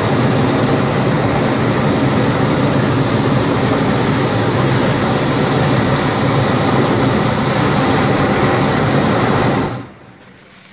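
Hot-air balloon's propane burner firing in one long blast, loud and steady, cutting off sharply near the end.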